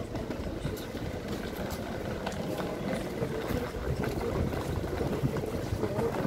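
Street ambience with a motor vehicle engine running steadily, plus scattered light ticks.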